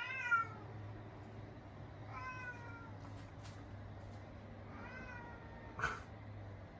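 A domestic cat meowing three times, each meow sliding down in pitch, followed about a second after the last by one short sharp burst.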